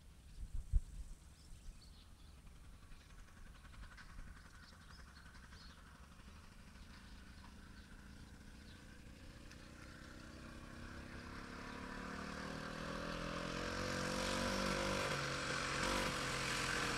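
A freshly restored VeloSolex 3800 moped's small two-stroke engine running as it approaches, faint at first and growing steadily louder over the second half. A few low thumps about a second in.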